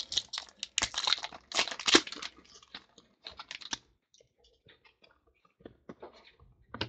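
Football trading cards flipped through by hand, the stiff card stock sliding and clicking against one another: a quick run of strokes for the first few seconds, then only scattered ones.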